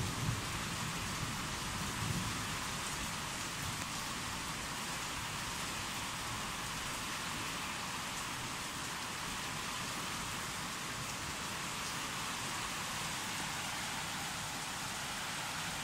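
Rain falling steadily during a thunderstorm, an even hiss with no break.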